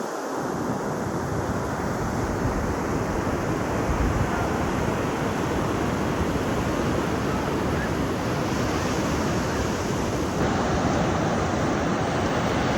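Ocean surf rushing steadily, with wind rumbling on the microphone.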